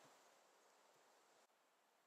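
Near silence: a faint, even background hiss.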